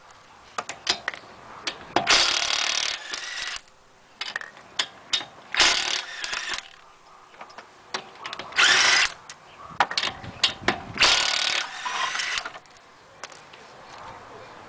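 Cordless power tool with a lug-nut socket spinning the lug nuts off a car wheel, in about five runs of a second or so each, with metallic clicks between them as the socket is moved from nut to nut.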